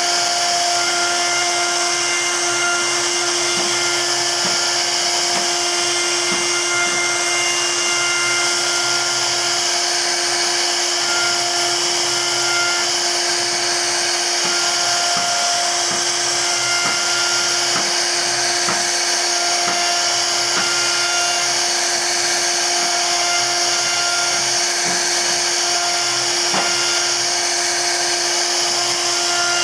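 CNC router's high-speed HSD spindle whining steadily as its router bit cuts a relief carving into a wooden panel, with a constant cutting hiss under the whine.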